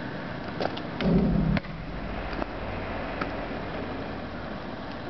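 Basketball bouncing on asphalt, a few sharp, irregularly spaced knocks. About a second in, a loud low hum lasts about half a second.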